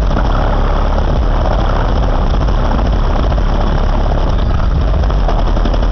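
Two 12-inch Pioneer Premier TS-W3002SPL subwoofers in a Mazda 323 hatchback playing loud, steady deep bass, heard from outside the car. The car's body and rear hatch glass buzz and rattle along with it.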